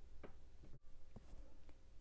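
Quiet room tone with a steady low hum and a few faint, short clicks.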